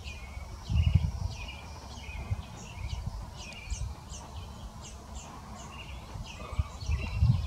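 Western bluebird fledgling begging with many short, high chirps as the female feeds it, some notes sliding downward. Low rumbles on the microphone about a second in and near the end.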